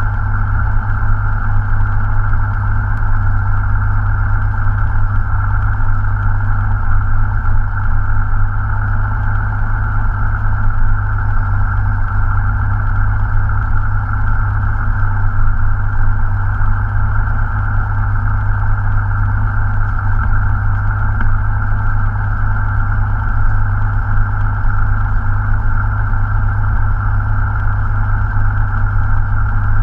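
Cessna 172 Skyhawk's piston engine and propeller running steadily on the ground, heard from inside the cockpit.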